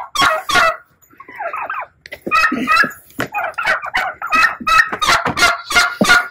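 Poultry calling: runs of loud, rapid, harsh calls, one after another, with short breaks about one and two seconds in.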